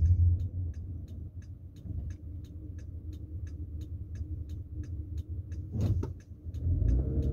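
A car's turn-signal indicator ticking evenly, about three clicks a second, heard inside the cabin over a low engine idle. Near the end the engine rumble rises as the car pulls away.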